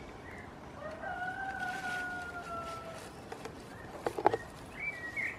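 A rooster crowing: one long call about a second in, its pitch sagging slowly until it stops. A few sharp clicks follow about four seconds in, the loudest sounds here, then short high chirps near the end.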